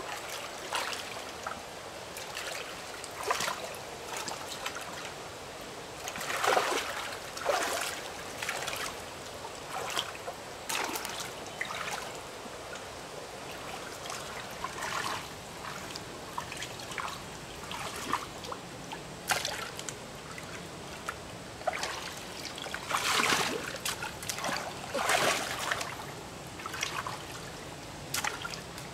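Hands splashing and sloshing in shallow muddy water, with a handful of louder splashes over a steady trickle of water.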